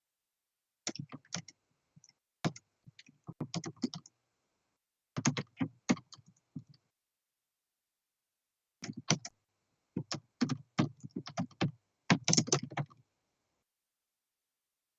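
Typing on a computer keyboard in several short bursts of rapid key clicks, with pauses between them.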